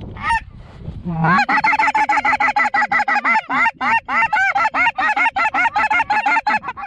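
Snow goose honks: a rapid, steady string of high calls, about five a second, starting about a second in.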